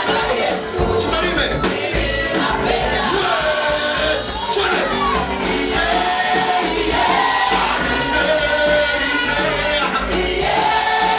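Gospel praise music: a group of voices singing over steady band accompaniment.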